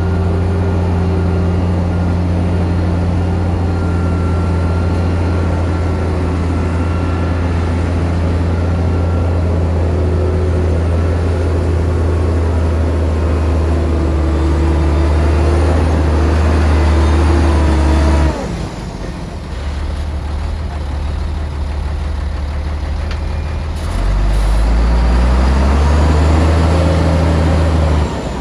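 Bulldozer's diesel engine running steadily under load, easing off about two-thirds of the way through, then revving back up with a rising pitch a few seconds later and running steady again.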